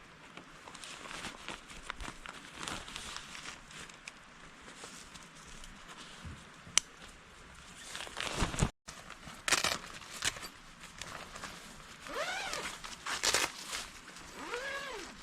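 Irregular crunching and rustling, like footsteps and gear being handled. There is a sharp click about seven seconds in, and two short squeals that rise and fall in pitch near the end.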